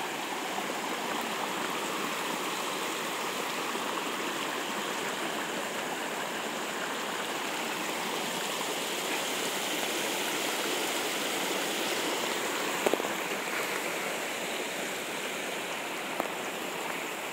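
Shallow rainwater stream running over bare rock slabs and around boulders in small cascades: a steady rush of flowing, splashing water. Two brief knocks stand out over it, about two-thirds of the way through and near the end.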